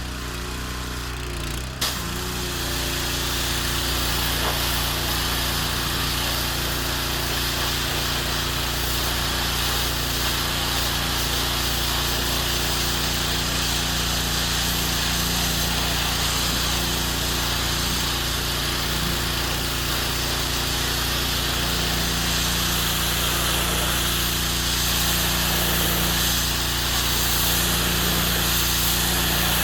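Small petrol engine running steadily at constant speed under a steady hiss, getting louder about two seconds in.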